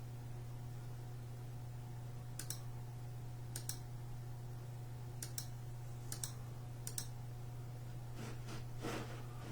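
About five sharp double clicks, each one or two seconds from the next, over a steady low hum. Rustling handling sounds start near the end.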